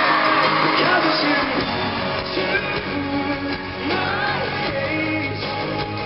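Live pop-rock band heard from the audience in an arena: singing over acoustic guitar and the full band. The bass comes in about a second and a half in.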